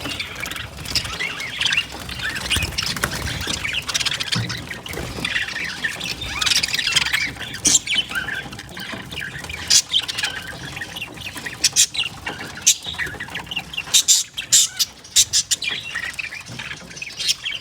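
Budgerigars chattering, with many short chirps and harsh squawks, the sharpest calls coming thick and fast in the last few seconds.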